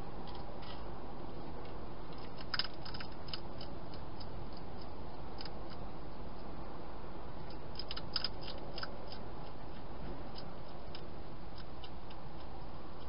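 Wild hedgehog crunching dry food inside a plastic feeding box: clusters of crisp clicks about two and a half seconds in and again around eight seconds, with a few single clicks between, over a steady background hiss.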